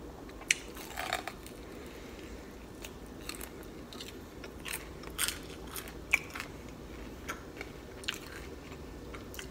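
A person biting and chewing an air-fried balsamic chicken wing, with a few scattered crunches and mouth clicks.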